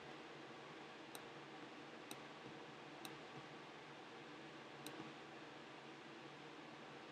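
Four faint, sharp clicks, spaced roughly a second apart, over a steady low hiss: clicks from operating an on-screen iPhone number keypad and buttons.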